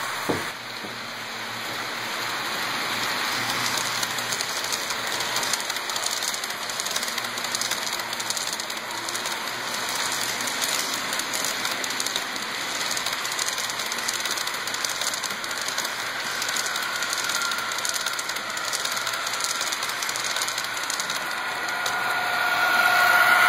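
HO-scale model freight train rolling past, its wheels giving a steady, rapid clicking rumble on the track, with a brief click just after the start. Near the end a steady pitched hum grows louder as a model locomotive draws near.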